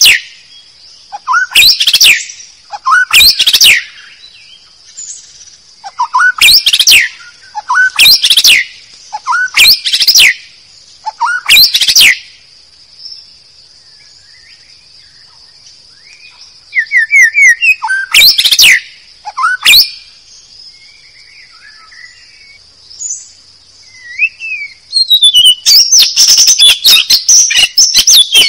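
White-rumped shama lure call: loud, sharp calls in short bursts every second or two, a lull in the middle, then a fast run of repeated calls near the end, over a steady high hum.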